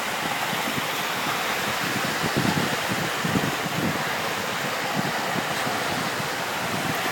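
Small surf washing onto a sandy beach as a steady hiss, with wind buffeting the microphone in irregular low rumbles.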